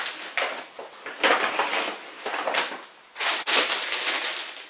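Plastic and paper shopping bags rustling and crinkling in several bouts as they are rummaged through and a plastic carrier bag is pulled out.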